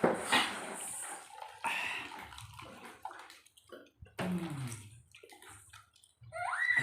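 Wet slurping and chewing of fried noodles in irregular noisy bursts. Near the end a voice rises sharply in pitch.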